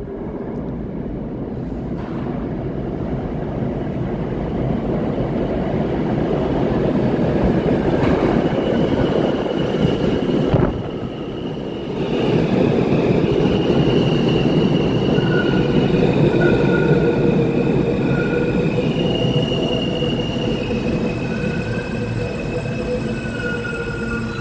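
R160 subway train arriving at an underground station: a rumble that builds as it comes out of the tunnel, then pulls in alongside the platform and slows. High, steady wheel squeals come and go over the rumble from about halfway through.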